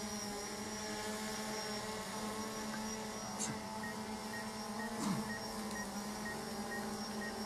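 Steady hum of a small multirotor drone hovering overhead, several whining tones held at a nearly even pitch, with two faint clicks midway.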